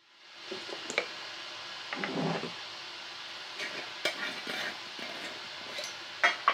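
Glass teapot, cup and jars being set down and moved on a wooden table: light clinks and knocks, with a short scrape about two seconds in, over a faint steady hiss.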